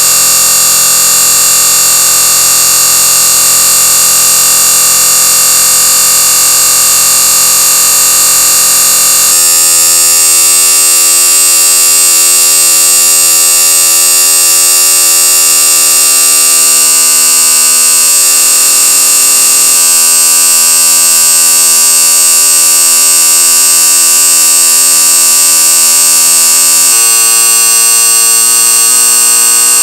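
Marbles spinning around in a bowl: a loud, continuous high-pitched whirring ring. Its lower tones shift about a third of the way in and again a few times later.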